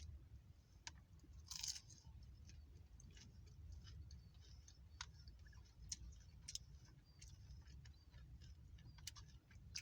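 Faint chewing of crunchy Taco Bell food, taco shells or nacho chips: scattered small crunches and clicks, with a short louder crunch near the start. A low steady rumble runs underneath.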